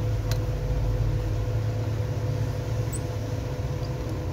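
Steady low machine hum with a faint steady higher tone, and a single light click about a third of a second in.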